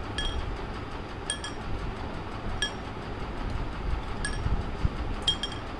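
Paintbrushes clinking against a glass tumbler of water as they are dropped in one by one: several short, bright clinks with a brief ring, two of them coming in quick pairs.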